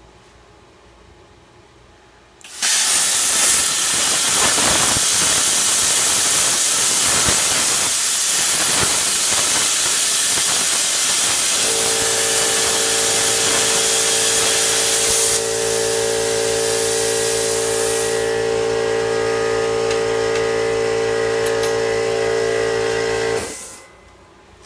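Plasma cutter cutting a hole in steel plate: a loud steady hiss of the arc and air that starts about two and a half seconds in and cuts off suddenly near the end, with a steady hum joining it about halfway through.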